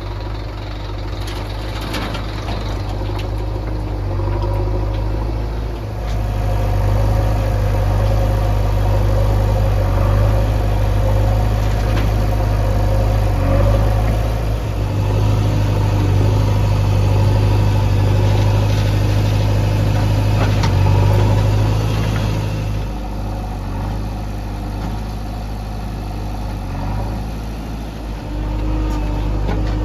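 Heavy diesel engines of a backhoe loader and farm tractors running as mud is loaded. The engines grow louder about six seconds in, then ease back near twenty-three seconds.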